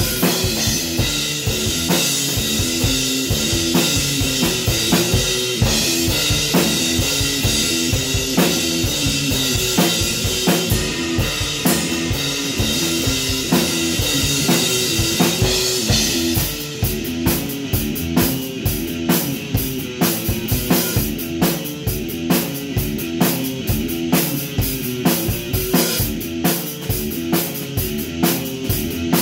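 Electric guitar playing a repeating riff over a rock drum-kit beat with kick, snare and cymbals. About halfway through, the cymbal wash drops out and a crisp, even ticking carries the beat.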